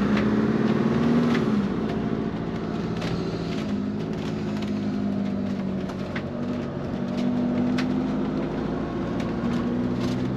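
Camping-car engine running steadily while driving, heard from inside the cab; the revs rise briefly about a second in and drop back, with a few faint clicks or rattles over the drone.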